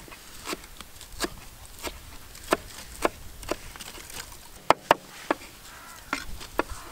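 Kitchen knife chopping spinach leaves on a cutting board: a run of sharp knocks, roughly two a second and unevenly spaced, with two louder knocks close together about two-thirds of the way through.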